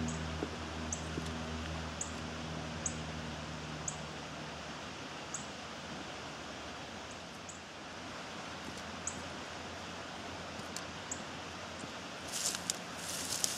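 Steady wash of a flowing creek, with a low hum that fades out a few seconds in. Near the end, rustling of dry grass and brush as someone climbs out of the water's edge carrying a filled plastic jug.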